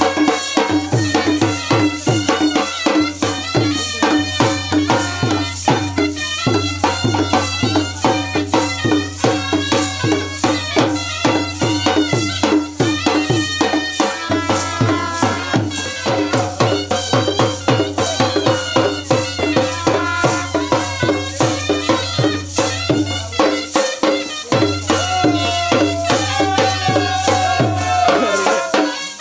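Traditional Konkani celebration band music: a fast, dense percussion beat under a melody that slides in pitch, over a steady low drone.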